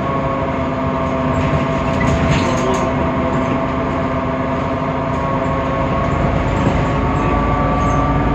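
Temsa Avenue LF city bus under way, its DAF PR 228 diesel engine and ZF Ecolife automatic gearbox giving a steady whine of several tones over a low rumble, the pitch rising slightly near the end. This whine is the unusual sound of this bus, different from the normal sound of the type.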